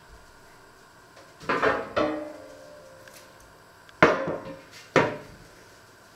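Enamelled steel oven baking tray clattering against a wooden worktop: two knocks with a short metallic ring, then two more sharp knocks about two and three seconds later.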